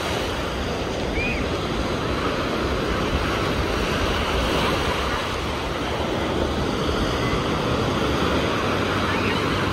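Ocean surf breaking and washing through shallow water: a steady rushing hiss of waves.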